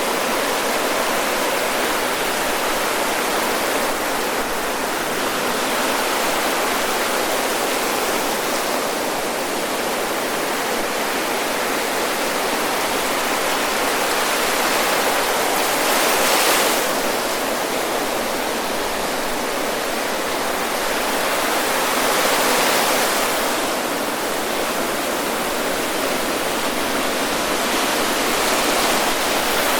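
Ocean surf breaking on a sandy beach: a continuous wash of hiss from the waves, swelling a little with the larger breakers about halfway through, near two-thirds of the way, and again near the end.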